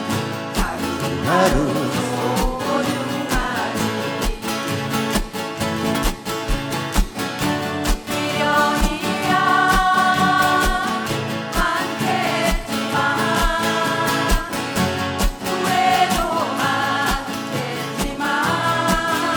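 A song sung over instrumental backing with a steady beat, with wavering, held sung notes.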